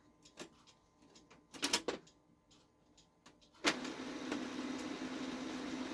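Plastic clicks and clacks as a roller part is fitted back into a Brother HL-2240 laser printer, then a sharp clack about three and a half seconds in, after which the printer's motor starts a steady hum with a low tone.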